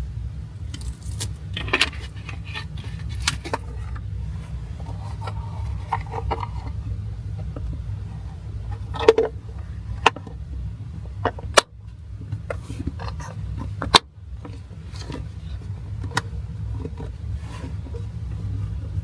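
Scattered clicks, knocks and light clinks of small objects being handled, the sharpest about nine, eleven and a half and fourteen seconds in, over a steady low rumble.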